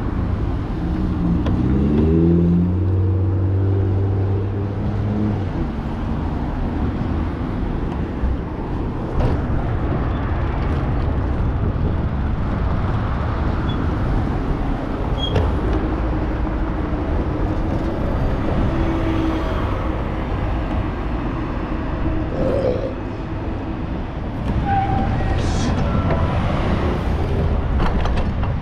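City street traffic with vehicle engines running, picked up on a moving bicycle ride. About a second in, one engine's pitch rises in steps as the vehicle accelerates.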